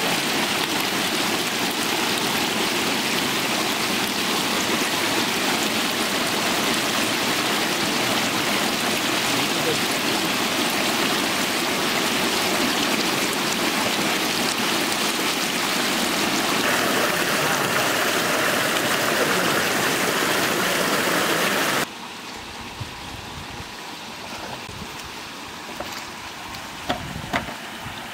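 Water gushing and splashing steadily over a bamboo-slat fish trap as the catch slides onto the slats. About twenty seconds in it cuts off suddenly to a much quieter flow of water with a few small knocks.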